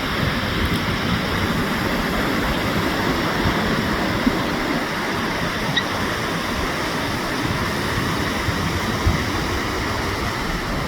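Ocean surf at a beach: a steady wash of breaking and receding waves.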